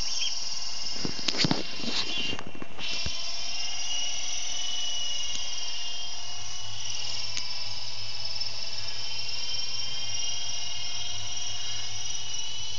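Radio-controlled model helicopter flying overhead: its motor and rotor give a steady, high-pitched whine, with a few bumps on the microphone about one to two seconds in.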